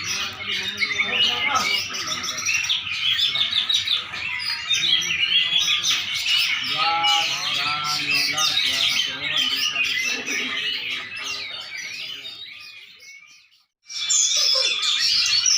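A songbird singing a rapid, continuous string of chirps and trills. The song fades out about three-quarters of the way through, and after a short silence it starts again abruptly.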